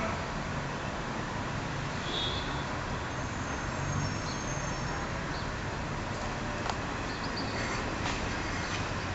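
Steady outdoor background noise with a low rumble like distant traffic, and a few faint, short high chirps.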